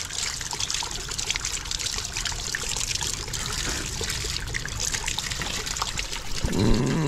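Spring water trickling steadily out of a rock-and-clay bank and splashing over a hand held in the flow.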